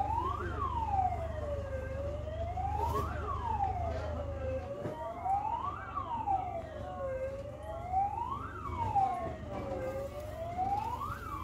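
Fire engine siren wailing, its pitch rising and falling smoothly about every two and a half to three seconds, over a steady low rumble.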